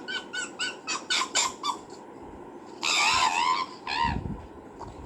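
Fox calling: a quick run of short, high yapping calls, then a longer, louder wavering scream about three seconds in and one more short call near the end.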